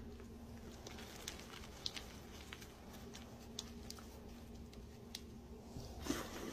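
Powdery dyed blocks being crumbled and rubbed between the hands: soft gritty rustling with scattered small crackles and ticks of breaking crumbs. A louder crunchy crumble comes near the end.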